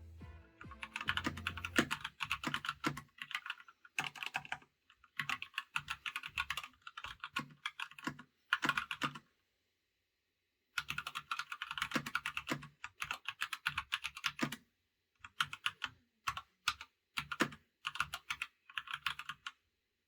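Typing on an Epomaker GK96s mechanical keyboard with stock Gateron Red linear switches, keyboard sitting on the bare desk without a mouse mat. The keys clack in fast runs with short pauses, and there is a silent break just after the middle.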